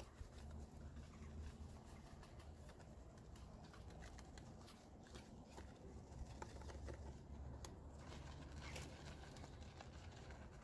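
Faint scrubbing of a wet, foam-covered alloy wheel with a wheel brush: soft scratching with scattered small clicks and taps as the brush works between the spokes, over a low steady rumble.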